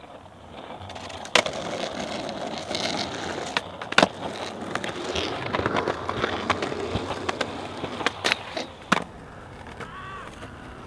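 Skateboard wheels rolling on concrete pavement, with several sharp clacks of the board; the loudest comes about four seconds in and a few come close together near the end, after which the rolling dies away.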